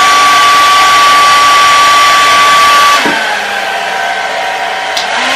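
Handheld hair dryer blowing with a steady high whine; about three seconds in it drops to a quieter, lower-pitched whine.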